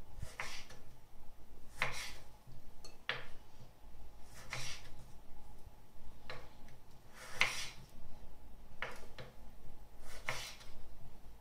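Kitchen knife slicing cherry tomatoes on a wooden cutting board, the blade tapping the board about eight times at a slow, uneven pace.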